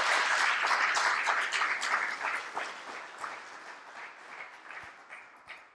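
Audience applauding: dense clapping that thins out and dies away over about five seconds.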